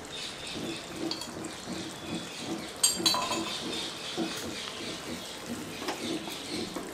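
Thick beetroot-coconut gravy simmering in a nonstick kadai, bubbling with soft low plops a few times a second. A couple of sharp clicks come about three seconds in, and a wooden spatula starts stirring the gravy near the end.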